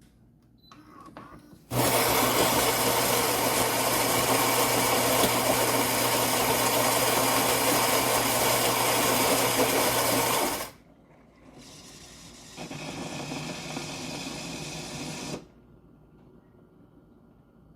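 Philips 2200 automatic espresso machine running: a loud, steady motorised noise with a low hum for about nine seconds, then a quieter hum with a high whine for about three seconds.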